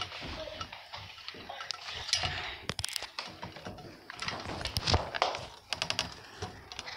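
Handling noise from a phone being gripped and moved right against its microphone: rustling, scattered clicks and knocks, with a louder thump about five seconds in.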